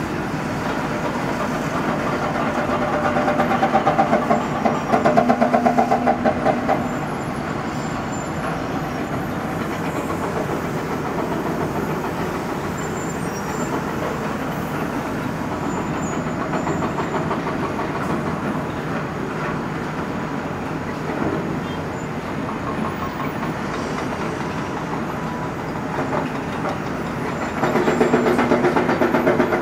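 Cat M315C wheeled excavator's diesel engine running steadily as it digs. It grows louder and higher in pitch, as under hydraulic load, from about three seconds in to about seven, and again near the end.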